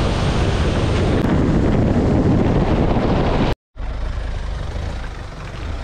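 Rushing water of a forest waterfall, a loud steady rush that cuts off suddenly about three and a half seconds in. It gives way to the low, steady running of a Mahindra Thar's engine.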